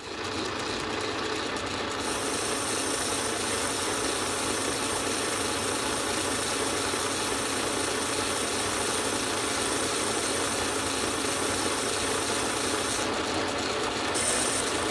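Metal lathe running steadily, turning down a worn bearing spacer for the cultivator's seals.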